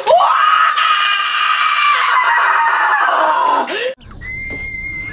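A boy's long scream, held at one pitch for more than three seconds and sagging in pitch before it breaks off suddenly: the rage outburst of the 'Keyboard Crasher'. A thin steady high tone follows near the end.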